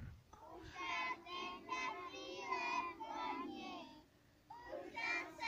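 A group of young children singing together, with a brief pause about four seconds in before the singing resumes.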